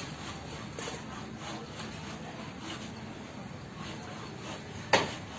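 Background noise of building work with faint scraping and light knocks, then one sharp, loud knock near the end, like a hammer striking timber.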